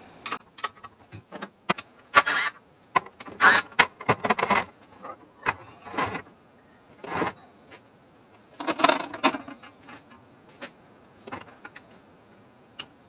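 Spanner work on the old electric motor's bolts and fittings: irregular metal clicks and short bursts of scraping as bolts are undone and parts are worked loose.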